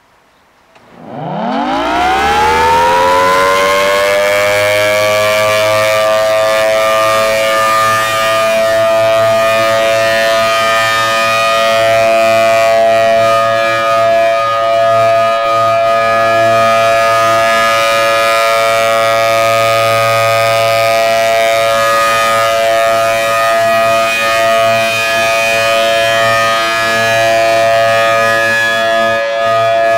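Federal Signal Thunderbolt 1000T outdoor warning siren starting up during a siren test: about a second in it winds up, its pitch rising quickly, and within a couple of seconds settles into a loud, steady tone of several notes at once that holds with small swells in level.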